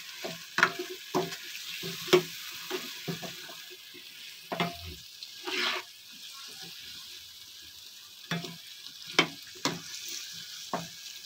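A spatula stirring and scraping potato chunks through thick onion-tomato masala in a nonstick wok, in irregular strokes and knocks against the pan, over a light sizzle of frying.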